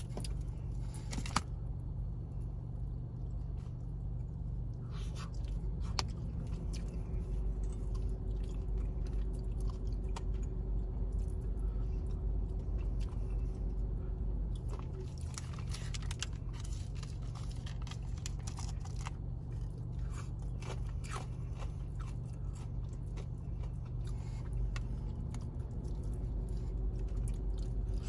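A person biting into and chewing crispy spicy fried chicken close to the microphone, with crunches of the fried breading coming in several clusters between quieter chewing.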